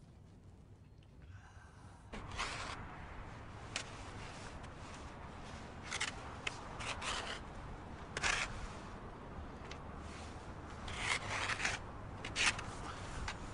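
A wooden stick scraping and digging into packed snow, making irregular crunching scrapes that start about two seconds in, some single and some in quick runs.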